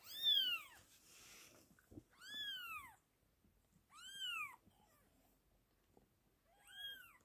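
Newborn British Shorthair kittens mewing: four thin, high-pitched cries about two seconds apart, each rising and then falling in pitch.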